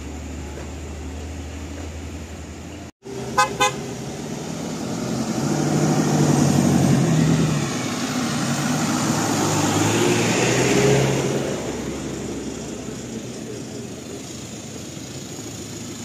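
A vehicle horn gives two short toots about three seconds in, then a large tour bus drives past close by, its engine and tyres swelling to a peak in the middle and fading away.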